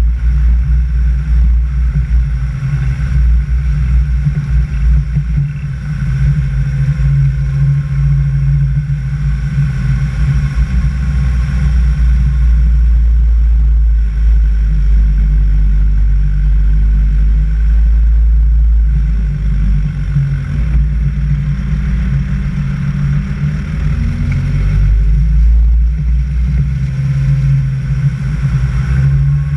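Vehicle engine running under way, heard through a camera mounted on the vehicle, with a strong low rumble; the engine note rises briefly a couple of times around twenty seconds in.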